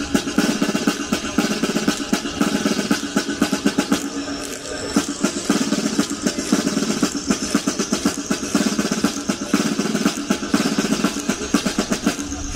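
Snare drums playing fast, continuous rolls and rudiments with a bass drum beneath, easing briefly about four seconds in.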